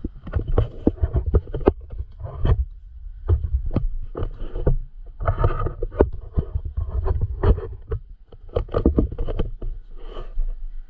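Microphone buffeting on the camera: a deep rumble coming and going in uneven gusts, with many irregular knocks and flutters.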